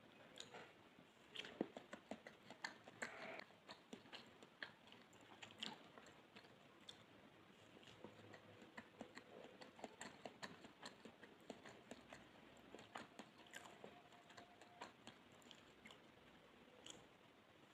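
Close-miked chewing of soft pandan sponge cake: faint, irregular wet mouth clicks and smacks.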